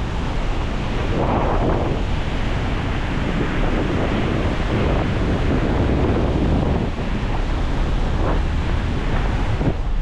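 Loud wind buffeting the microphone from a moving car, a rushing noise that swells and dips.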